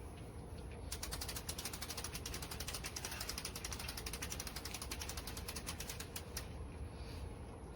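Patio umbrella crank being turned: its ratchet clicks rapidly and evenly for about five seconds, starting about a second in, then stops.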